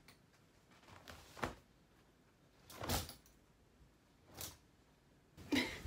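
Clothes, some on hangers, being tossed onto an armchair: a handful of short fabric swishes and soft knocks, a second or so apart.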